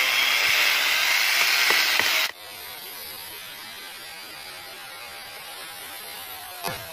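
Electric angle grinder with a wood-cutting blade biting into a mango tree trunk: a loud, steady grinding whine that cuts off abruptly about two seconds in. A much quieter outdoor hiss follows, with one sharp knock near the end.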